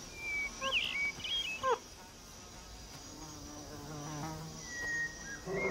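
Savanna ambience: insects buzz and drone steadily, with scattered high whistled calls, a quick cluster in the first two seconds and one long whistle near the end.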